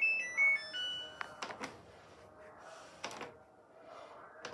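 Samsung washing machine control panel playing a short electronic melody of beeps as program buttons are pressed, followed by a few sharp clicks.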